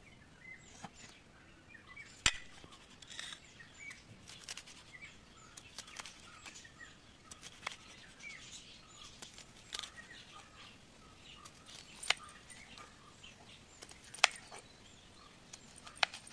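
Kitchen knife slicing star fruit on a plastic cutting board, the blade hitting the board in a few sharp, irregular knocks. Birds chirp throughout in the background.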